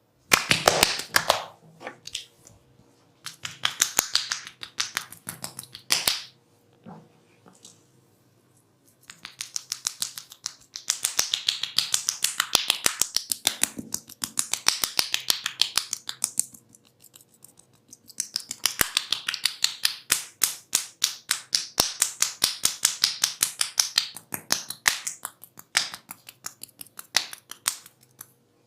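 Quick, rhythmic snapping and slapping from a barber's hands during an ASMR head and body massage, several sharp strokes a second in runs of a few seconds with short pauses between.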